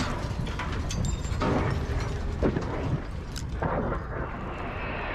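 Ordnance explosions on a ground target: deep rumbling with a few sharp cracks in the first few seconds, settling into a steadier, duller rushing rumble in the second half.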